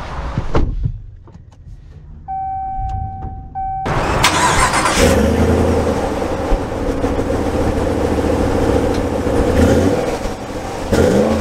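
A thump, then a cabin chime sounds twice before a 2023 Ram 1500 Limited pickup's engine starts about four seconds in with a loud cranking burst. It settles into a steady idle, with a brief rise in revs near the end.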